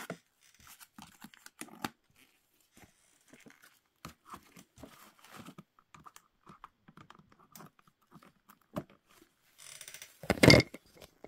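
Scissors snipping and cardboard-and-plastic toy packaging rustling in short scattered clicks as a doll is cut free from its box, with a louder burst of crinkling and tearing about ten seconds in.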